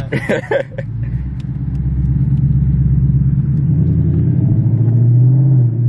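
2018 Mustang GT's 5.0 V8 through a muffler-deleted, X-piped straight exhaust, heard from inside the cabin: a low, steady drone that grows louder over several seconds.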